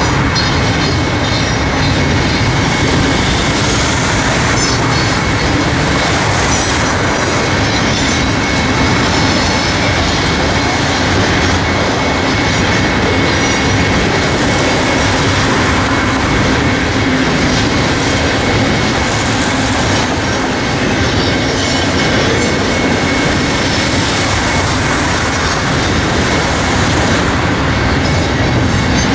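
Double-stack intermodal container freight train rolling steadily past at a grade crossing, the wheels of the cars running over the rails.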